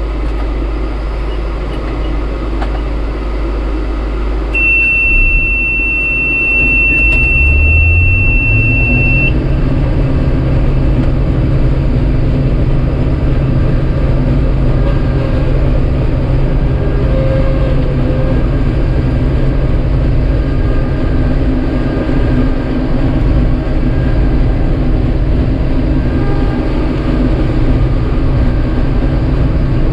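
Combine's diesel engine running, throttled up about eight seconds in to a higher steady speed and holding there. A steady high-pitched beep sounds for about five seconds just before and during the throttle-up.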